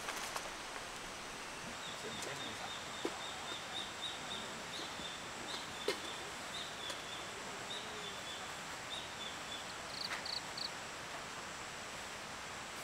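Forest ambience: a steady hiss with a high, chirping animal call repeating for several seconds, then a few quick higher chirps about ten seconds in.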